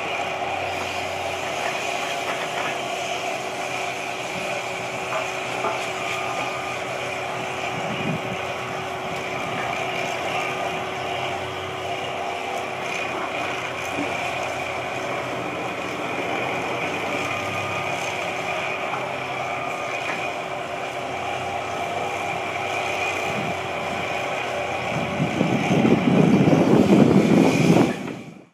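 Tracked drill rig installing rammed aggregate piers, its engine and hydraulics running steadily with a held whine. The noise grows louder and rougher for the last few seconds, then cuts off abruptly.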